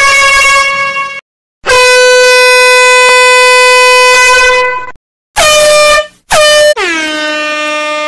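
Horn sound effects played from a phone soundboard app: air-horn-like blasts, one ending about a second in, then a long steady blast of about three seconds, two short blasts, and a last blast whose pitch slides down and settles lower.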